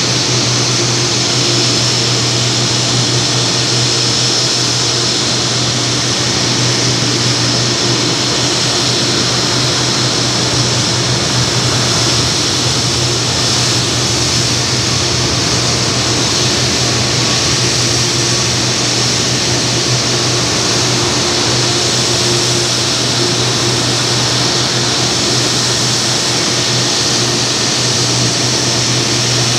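Steady, unbroken noise at a Condor Boeing 757-300 being de-iced: a jet aircraft and de-icing equipment running together, a low hum under a high hiss.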